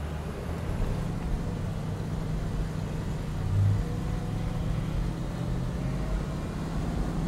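Range Rover Sport engine and drivetrain working under load, heard from inside the cabin as the SUV pushes through deep sand: a steady low rumble with a brief swell about three and a half seconds in and a faint rising whine.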